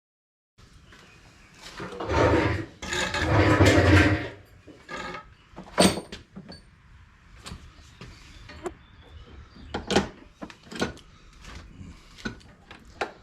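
Hand tools working on an ATV prop shaft's universal joints. There is a couple of seconds of loud scraping and rattling, then a series of sharp metal clicks and taps spaced a second or so apart.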